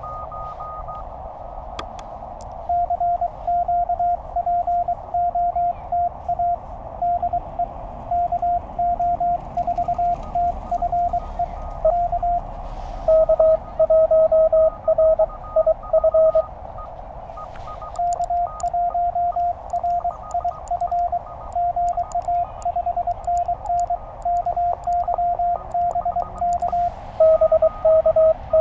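Morse code (CW) tones from a Penntek TR-35 QRP transceiver: dits and dahs keyed on and off over receiver hiss as two stations exchange a contact. Most of the sending is at one pitch; two shorter stretches, about halfway through and near the end, are a little lower in pitch and louder.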